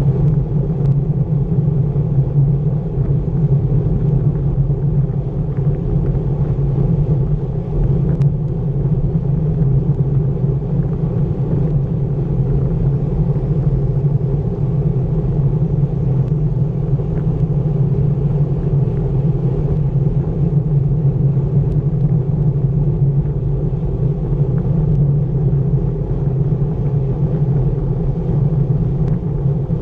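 Steady rumble of wind on the microphone and tyre noise from road bicycles rolling at about 23 mph on asphalt, picked up by a bike-mounted camera.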